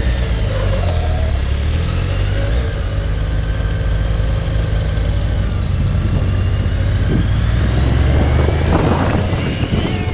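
Motorcycle engine running under the rider, heard from the saddle as the bike pulls away and rides along at low speed, the engine note climbing with more throttle in the last few seconds. Wind rush on the microphone builds near the end.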